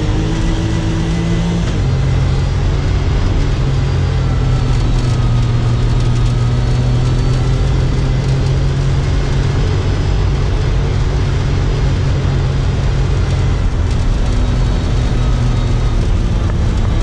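Off-road side-by-side's engine running hard while driving across sand, the engine note holding steady and changing pitch a couple of times, about two seconds in and again near the end.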